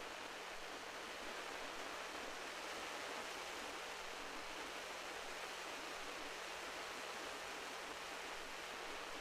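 Steady wash of sea surf, an even hiss with no single wave standing out.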